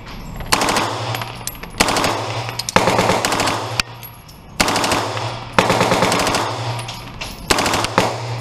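Full-auto AR-pattern (M16-type) carbine firing six short bursts of a few rounds each, with the shots ringing off the walls of an indoor range.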